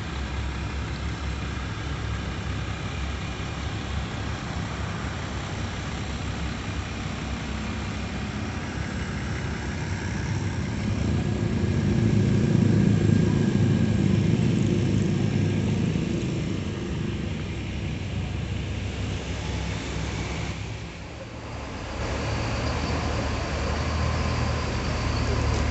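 Diesel intercity bus engines running at idle, with one swelling louder for several seconds around the middle and the sound dipping briefly near the end.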